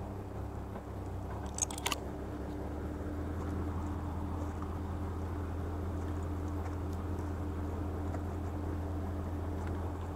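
An engine running steadily at a constant pitch, with a brief rattle of sharp clicks just under two seconds in.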